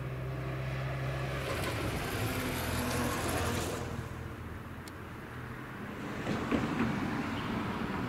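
A motor vehicle passing on a road: a hiss that swells for about two seconds and then falls away, over a steady low hum of traffic.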